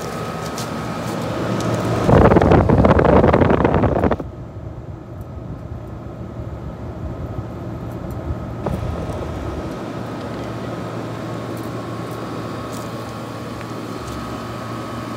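Late-1960s Westinghouse 23,500 BTU room air conditioner running with a steady hum and a faint high whine. About two seconds in, a loud rushing noise lasts about two seconds, then the unit's steady running continues.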